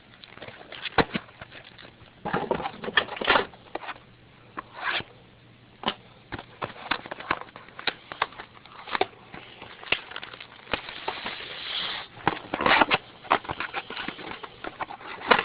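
Trading card pack and box packaging being handled and torn open: irregular clicks, taps and short rustles, with a longer crinkle of wrapper about ten seconds in.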